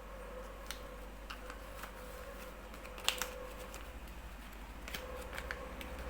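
Origami paper being folded and creased by hand: scattered light crinkles and ticks, the loudest about three seconds in, over a faint steady hum.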